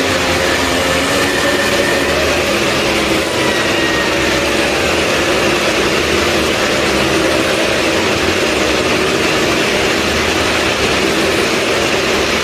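Engines of the stunt vehicles riding the wall of a Well of Death (maut ka kuan), running loud and steady without a pause.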